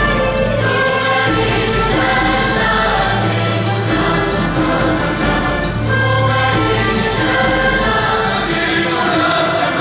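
Symphony orchestra playing with voices singing over it, full and continuous, with a low bass note that swells in for long held stretches.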